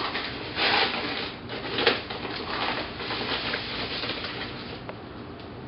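Granulated sugar scooped from a paper bag with a measuring cup and poured into a stainless steel mixing bowl: the bag rustling and the sugar hissing as it pours, in several short bursts.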